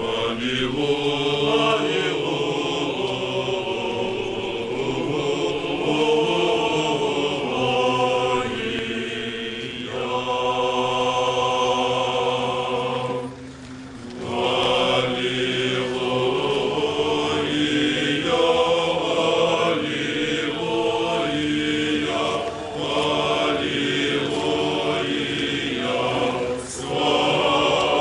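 Orthodox funeral chant sung by a group of voices in long sustained phrases, with short breaks about halfway through and near the end.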